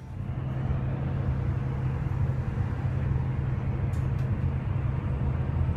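Steady road noise inside a vehicle driving on a highway: a constant low drone from the engine and tyres, with a hiss of wind and road noise over it.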